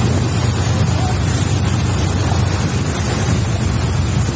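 Floodwater rushing and churning through a street, a steady loud roar of moving water, with wind buffeting the microphone and adding a low rumble.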